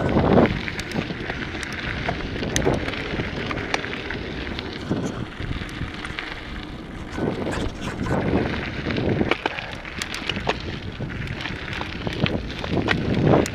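Mountain bike riding over a dirt road and trail: wind gusting on the action camera's microphone, with tyres crunching on gravel and many sharp clicks and rattles from the bike.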